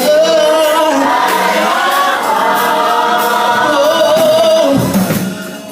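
Gospel choir singing long held, gliding notes that fade away about five seconds in.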